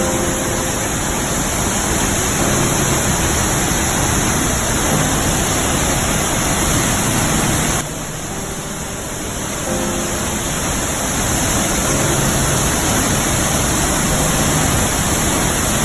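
Waterfall: a steady, loud rush of falling water, dropping in level for about two seconds near the middle.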